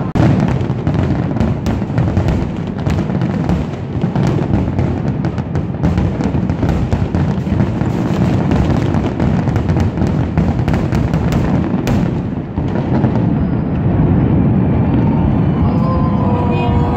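Fireworks finale: a dense barrage of shell bursts and crackle, many explosions a second, thinning out after about twelve seconds.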